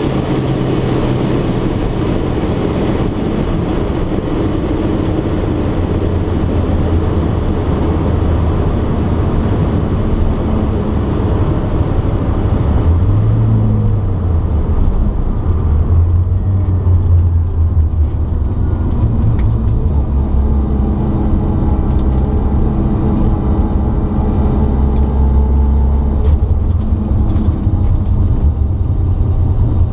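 Turbocharged 13B rotary engine of a 1972 Mazda RX2, heard from inside the cabin, running at low revs with a steady low rumble as the car rolls slowly after a quarter-mile pass.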